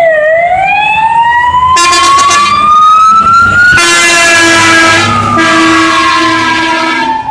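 Fire engine passing close by with its siren wailing, the pitch sweeping slowly down, up and down again. A loud horn sounds over the siren from about two seconds in, loudest as the truck goes by, with a short break midway.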